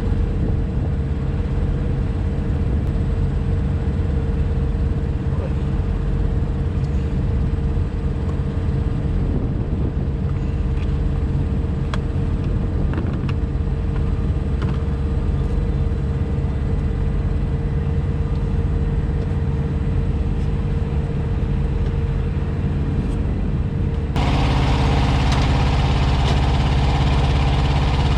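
Semi truck's diesel engine idling steadily. About 24 seconds in, the sound suddenly becomes louder and brighter.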